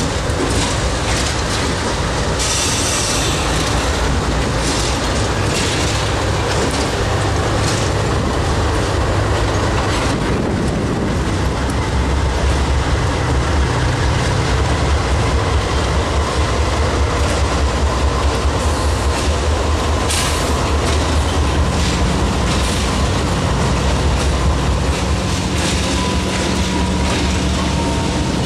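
GE Dash 8-40CW diesel-electric freight locomotives passing close by under power, a steady low engine drone that grows louder about twelve seconds in, with wheels clicking over the rail joints. A faint thin wheel squeal drifts down in pitch near the end.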